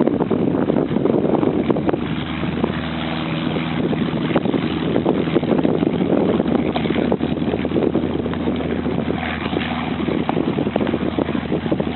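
Cessna 152's four-cylinder Lycoming O-235 engine and propeller running steadily, a constant drone with a rushing noise over it.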